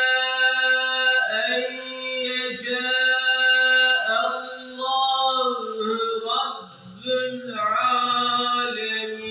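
A man reciting the Qur'an in a melodic tilawah style, holding long sung notes with ornamented turns and taking brief breaks between phrases.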